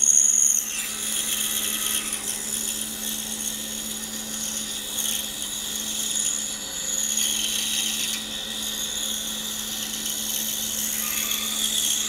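Pegas scroll saw running with a steady hum, its blade cutting continuously through a thick block of buckeye wood.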